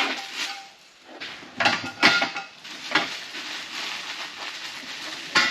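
Steel welding cart parts clanking and rattling as they are unpacked and handled: a handful of sharp metal knocks, with a stretch of rustling in the middle.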